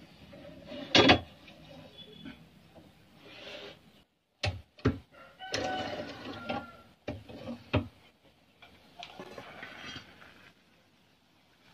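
Irregular knocks, clicks and rattles of workshop hand work, the loudest knocks about a second in and again around five to eight seconds in. The sound cuts out completely for a moment just before four seconds in.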